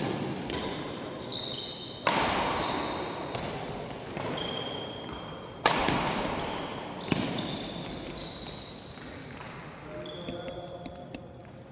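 Badminton rally: four sharp racket hits on the shuttlecock, each echoing through a large hall, with short high squeaks from shoes on the court floor between them.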